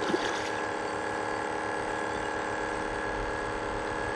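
Small single-cylinder petrol engine on a wooden river boat running steadily at idle. Brief splashing near the end as a hooked fish is lifted out of the water.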